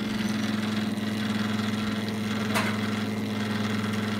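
Hand-cranked cream separator running with a steady hum as its bowl spins, separating the milk into cream and skim milk. One brief sharp sound about two and a half seconds in.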